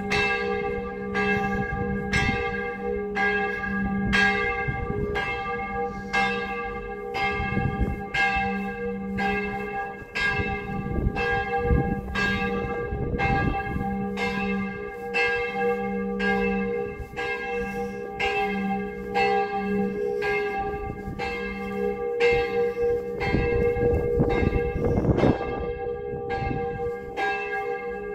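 A church bell ringing steadily, about one stroke a second, each stroke's ringing carrying on into the next.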